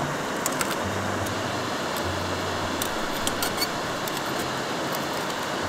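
Light metal clicks and taps as a small folding stainless-steel stove (Firebox Nano) is taken from its metal case and fitted together, over a steady background rush.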